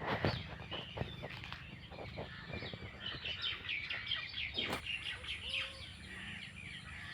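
Small birds chirping and twittering in quick repeated notes. There are a few sharp clicks in the first second or so and a steady low rumble underneath.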